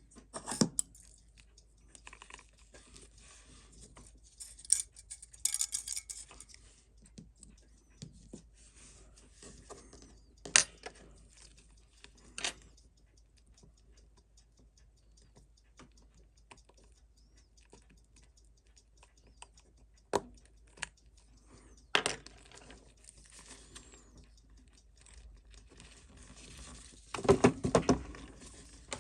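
Scattered small metallic clicks and taps of watchmaker's tools and tiny watch parts being handled and set down while a vintage Seiko 6105 is taken apart, with a short busier clatter near the end.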